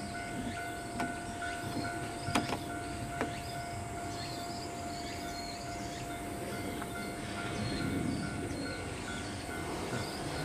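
Akechi Railway diesel railcar approaching in the distance, a low rumble that swells toward the end, over a steady high tone, a fast pulsing beep and small chirps; a few sharp clicks in the first few seconds.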